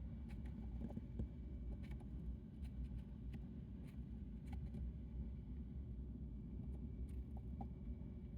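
Hamster nibbling and chewing pumpkin: faint, irregular little clicks and crunches over a steady low hum.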